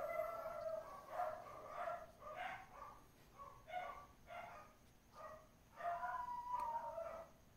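A dog whining and yipping in short pitched calls, about two a second, with one longer whine near the end.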